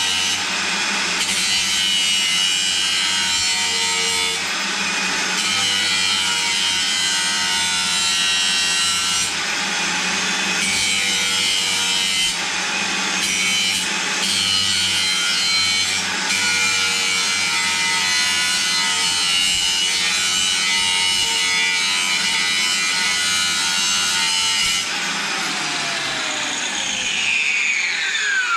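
Angle grinder cutting metal, running under load with a loud, steady grinding noise. Near the end the cut stops and the disc spins down in a falling whine.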